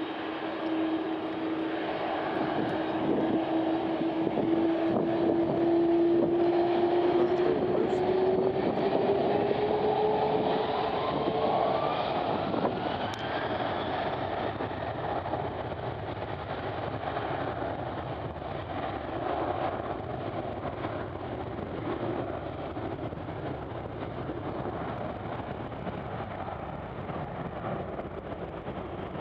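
Airbus A330 jet engines running as the airliner taxis past: a steady whine over a broad roar, the whine rising in pitch for a few seconds as thrust comes up, then the sound easing to a duller rumble as the aircraft moves off.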